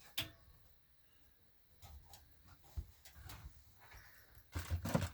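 Electrical cable being stapled to wooden framing: a single sharp knock near the start, a few faint taps in the middle, and a quick cluster of louder knocks near the end.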